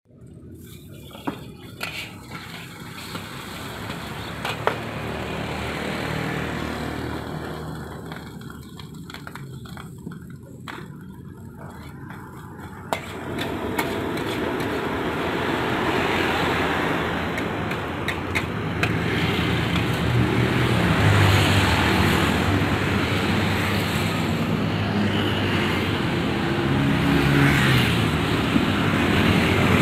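Metal spatula clacking and scraping in a wok of frying rice, over a steady low drone that gets louder about halfway through.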